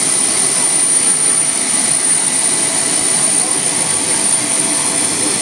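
Jet turbine engine on a John Deere pulling tractor, running hard under load as it drags the weight-transfer sled: a loud, steady rush with a high whine held on one pitch.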